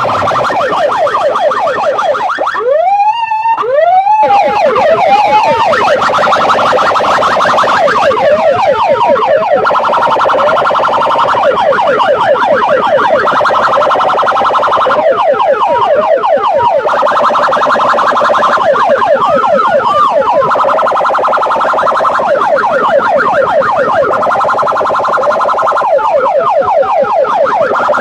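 Loud electronic siren effect played through a DJ sound system: a fast warble of quick rising sweeps, looping without a break, with a few bigger whooping rises in among it.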